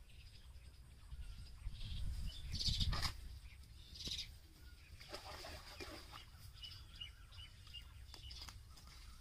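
Birds chirping in the background. About two to three seconds in comes a louder rustle with a low rumble and a sharp knock, and a softer rustle follows a couple of seconds later.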